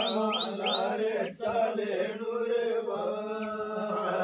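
A group of men chanting a Banjara devotional song to Sevalal together over a steady held tone, with a brief break about a second and a half in.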